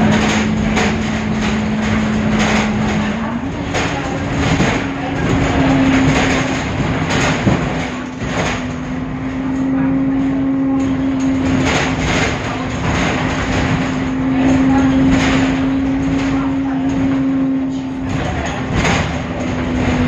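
Temsa Avenue LF city bus with a DAF engine under way: a steady drivetrain whine that dips in pitch right at the start and climbs back a few seconds in, over a low rumble with repeated rattles and knocks. This bus has a darker sound than others of its type.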